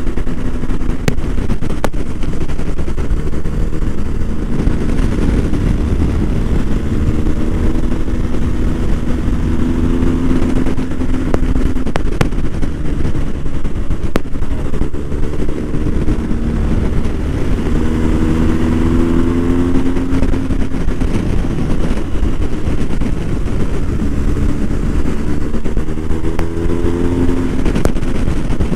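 BMW R1250 GS boxer-twin motorcycle engine under way, its note rising several times as the bike accelerates, over a heavy steady rush of wind noise.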